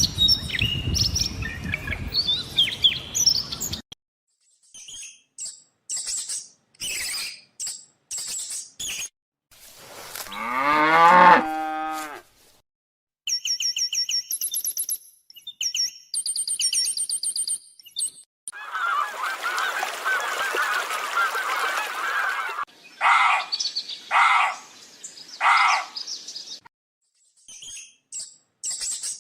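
A series of different animal and bird calls one after another, with short silent gaps between them: high chirps, a long call falling in pitch, rapid high trills, and a run of loud honk-like calls near the end.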